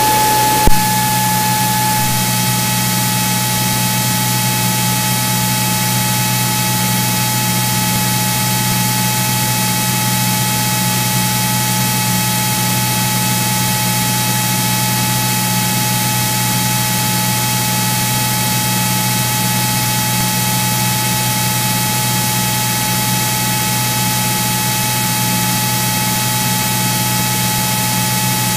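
Steady drone and hiss of a Cirrus SR22's engine and propeller, heard through the cockpit intercom audio feed, with a constant low hum and a thin high tone. A single click just under a second in.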